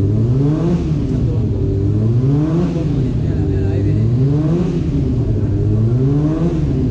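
Racing superbike engine revved over and over in blips about once a second, its pitch rising and falling with each one.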